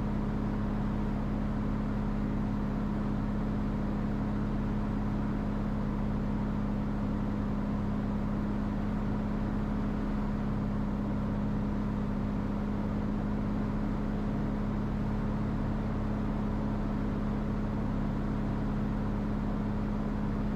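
Cirrus SR22T's turbocharged six-cylinder engine and propeller holding a steady approach power on short final, heard from inside the cabin as an even drone with one strong steady tone.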